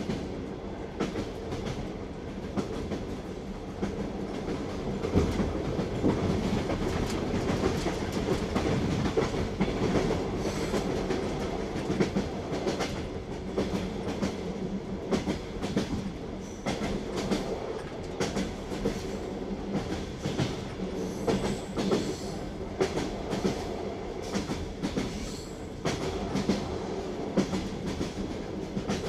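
Train wheels clattering over rail joints while the carriage rumbles along steadily, with many short clicks and knocks over a constant low hum.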